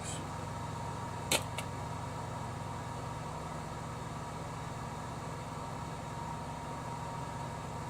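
A steady electrical hum, with one sharp click about a second in and a fainter tick just after it, as power door lock wiring is tested.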